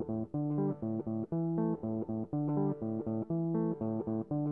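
Background music: a plucked guitar playing a repeating run of short notes over a bass line.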